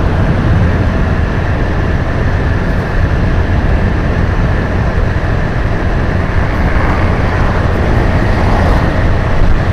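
Steady wind rush on the microphone and running noise from a motorcycle being ridden, dominated by low rumble.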